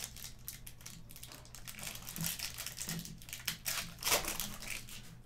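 Foil wrapper of a Panini Mosaic basketball card pack being pulled open and crinkled by hand: a run of irregular crackling rustles, busiest in the second half.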